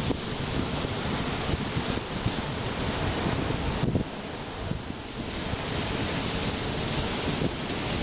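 Pacific surf breaking on offshore rocks and washing among the shoreline boulders, a continuous rush of water, with wind rumbling on the microphone. The rush drops suddenly about halfway through, then builds again.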